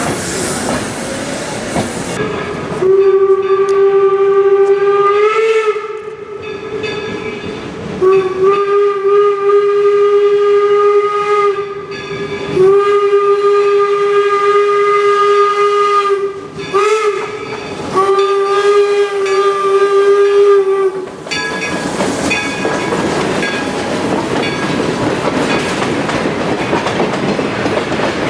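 Steam whistle of the 4-4-0 replica locomotive #17 "York" blowing a sequence of blasts on one steady tone: long blasts, a short toot, then a final long blast, the pattern of a grade-crossing signal. Before and after the whistle, the train's running and rail clatter fill the sound.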